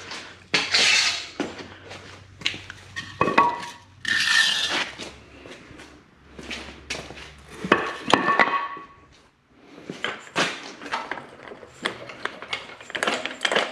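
Scattered metal clinks and knocks, with a few short rushing noises, as a motorcycle is let down off its stand and handled after a front fork is refitted.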